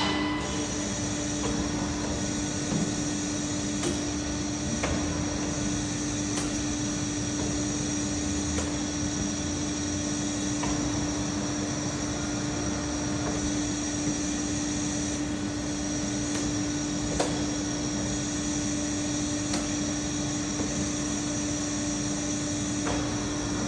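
Nicolas Correa L30/58 CNC bed milling machine running during an automatic tool change: a steady hum with a constant low tone and a faint high whine, with a faint click now and then.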